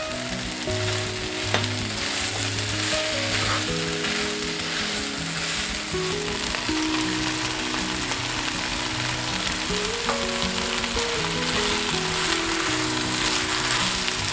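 Pork, cabbage and green peppers sizzling steadily in an oiled frying pan as they are stir-fried, over background music.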